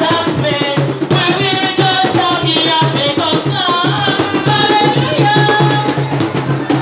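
Music with drums and percussion keeping a steady beat and a voice singing over it.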